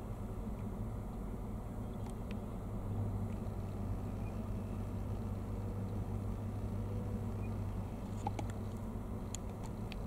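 Steady low hum and rumble, with a few faint short clicks near the end.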